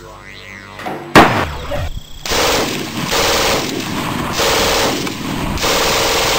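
A single loud gunshot sound effect about a second in, followed by long bursts of rapid machine-gun fire sound effect.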